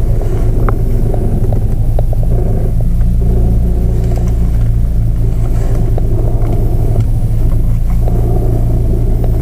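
Chevrolet Cruze idling with a steady low hum while the steering wheel is turned, and a scratchy creaking with a few clicks from the front suspension: the left front strut's top mount bearing, worn out again.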